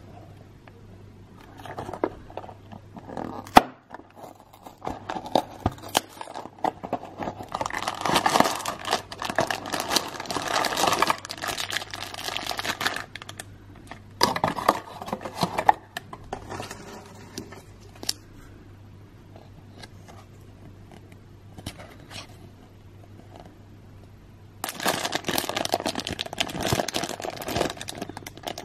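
A cardboard toy box being torn open and clear plastic bags crinkling as miniature toy pieces are unwrapped, in several bursts with quieter pauses between. There is one sharp snap a few seconds in.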